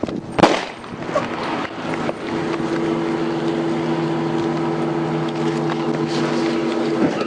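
A sharp bang about half a second in, then from about two seconds in a steady, even drone like a vehicle engine held at constant revs, stopping just before the end.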